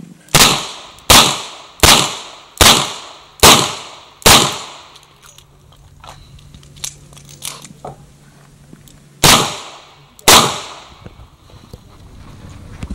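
Six .38 Special shots from a Chiappa Rhino revolver, evenly spaced about three-quarters of a second apart, then a few seconds of faint clicks while the six-shot cylinder is reloaded, then two more shots a second apart.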